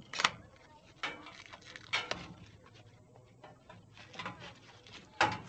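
A handful of sharp knocks and clatters of hard objects being handled. The loudest comes just after the start and another near the end, with lighter ones about one and two seconds in.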